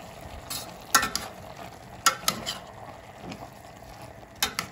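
Stirring utensil turning chopped tomatoes, onion, carrot and meat in a stainless steel pot, with sharp knocks and scrapes against the pot about every second, over a low steady sizzle of the vegetables frying.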